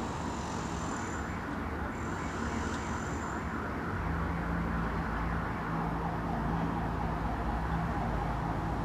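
Quiet night-time ambient background: a steady hiss with two faint high trills in the first few seconds, then a low steady hum and rumble that comes in about four seconds in.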